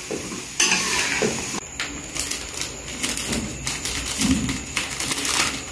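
Kuih siput frying in hot oil in a wok, hissing as a spatula stirs them. About a second and a half in, this gives way to a run of crinkling clicks from a plastic bag being opened and handled over a tub of the fried snacks.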